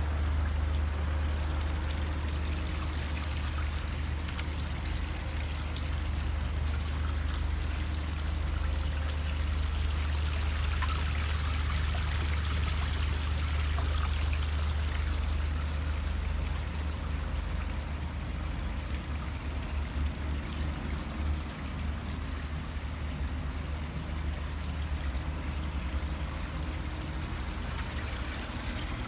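Koi pond water running and trickling steadily, with a steady low rumble underneath.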